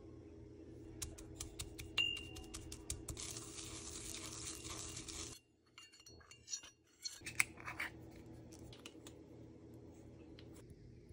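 Hard dried weld-pigment flakes clicking and scraping against a ceramic mortar as they are broken up and worked: a run of small sharp clicks with a scraping rush. After a short break there are a few more clinks, then only a faint steady hum.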